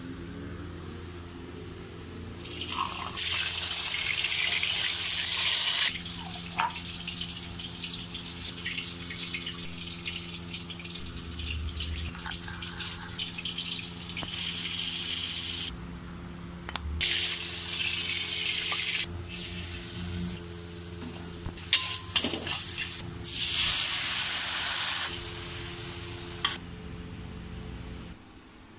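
Kitchen cooking noise: several separate bursts of loud hissing, each a few seconds long, over a steady low hum, with a few sharp clicks and clatters in between.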